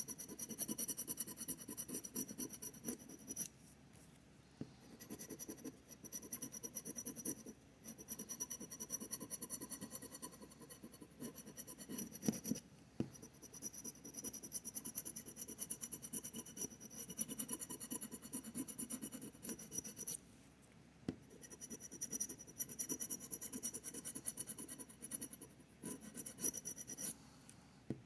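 Scratch-off lottery ticket being scratched: quick, repeated rubbing strokes scraping off the coating, broken by a few short pauses.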